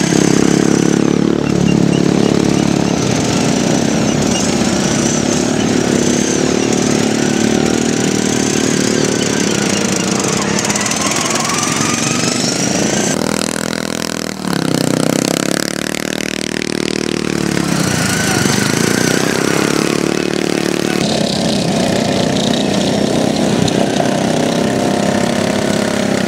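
Racing lawn mower engines running hard, their pitch rising and falling as the mowers accelerate and ease off. A single sweep up and back down comes a little past the middle, as one mower passes close.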